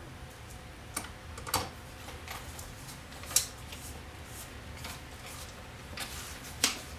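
Small clicks and taps of a Torx screwdriver working screws back into a CD recorder's plastic drive and drawer mechanism. A few sharp clicks come at uneven intervals, the loudest about three and a half seconds in and near the end.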